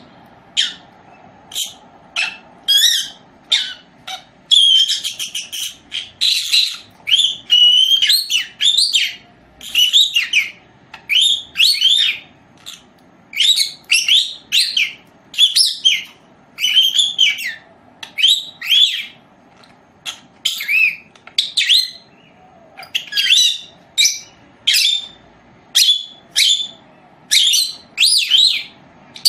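Caged small parrot giving a long series of sharp, high chirps, about one or two a second, with a faster run of calls a few seconds in.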